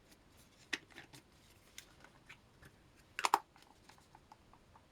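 Scattered light clicks and knocks of tools and small items being handled and set down on a workbench, with a louder short clatter about three seconds in.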